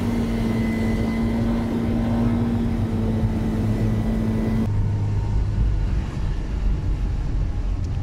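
Car engine and road noise heard from inside the cabin while driving: a steady engine hum, which cuts off abruptly a little past halfway and gives way to a lower rumble.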